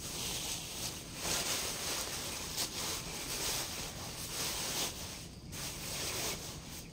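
Rustling of a cloth bag and plastic wrapping being handled, opened and rummaged through, going in uneven swells with brief pauses.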